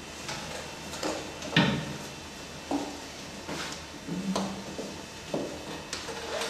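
A series of irregular knocks and clicks, about ten in all, the loudest about a second and a half in.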